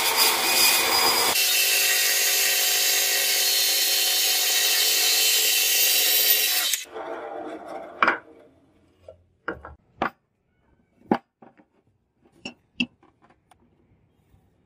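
Band saw resawing a wooden block lengthwise: the saw runs loud and steady for about seven seconds, then stops abruptly. A few separate knocks follow as the cut wooden pieces are handled.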